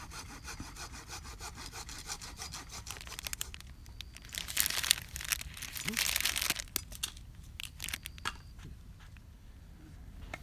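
Clear plastic bag crinkling and rustling in the hand as a cup is worked out of it. Small crackles and clicks are followed by two louder rustles, about four and six seconds in.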